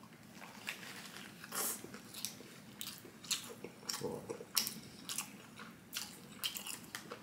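Close-up biting and chewing of a toasted shawarma wrap, with short crunchy crackles and the crinkle of its paper wrapper being handled.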